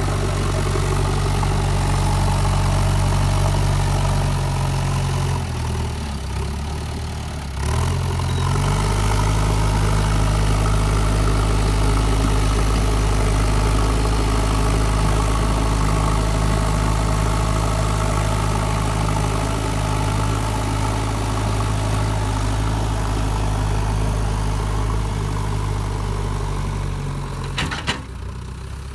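Diesel engine of a JCB 3DX backhoe loader running steadily. Its note dips and shifts for a couple of seconds before settling again. There is a brief sharp click near the end.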